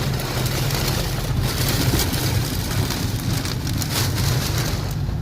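Heavy rain pouring down in strong wind during a storm: a dense, steady hiss flecked with many small splashes, over a constant low rumble.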